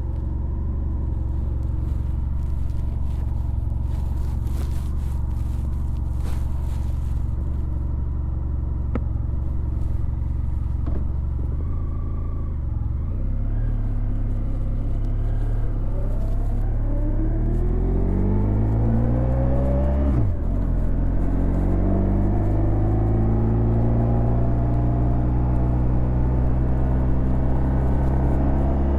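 2016 Honda VFR1200X Crosstourer's 1237 cc V4 engine through an Akrapovic titanium exhaust, running steadily, then accelerating with rising pitch. A gear change about twenty seconds in is followed by a second rise.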